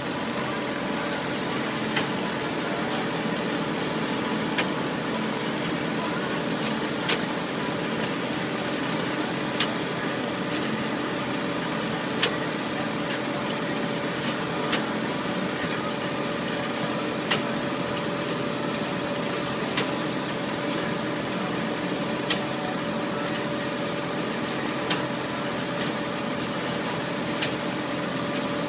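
Machine running steadily with a steady hum, and a sharp click repeating regularly about every two and a half seconds.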